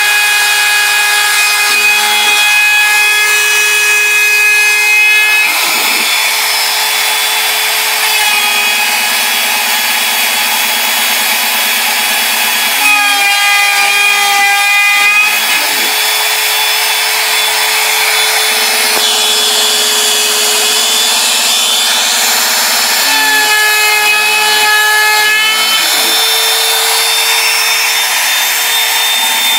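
Bosch Colt trim router on a CNC machine cutting bamboo board with a 2-flute bit: a steady high motor whine over the cutting noise. Beneath it a lower hum changes pitch every few seconds as the cut moves along.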